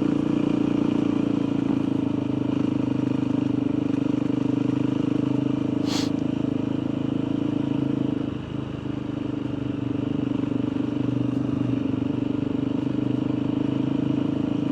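Motorcycle engine running steadily while riding. Its note dips briefly about eight and a half seconds in, as the throttle eases, with a short high click around six seconds in.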